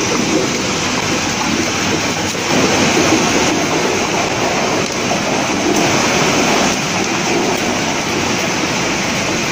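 Steady noise of a potato chip processing line running, its conveyors and motors going together with no pauses.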